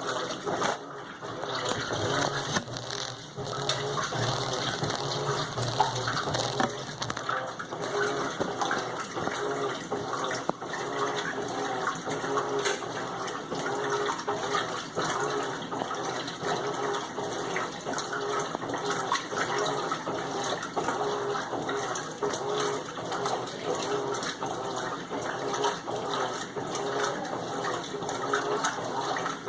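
Water rushing steadily in an Electrolux LTM15 washing machine, with a faint steady hum under it.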